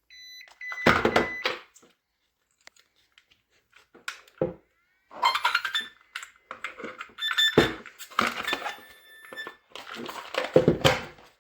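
Short electronic beeping tones from an Arrma Typhon 3S RC car's brushless motor system as it is switched on and armed, among several knocks and bits of clatter from handling.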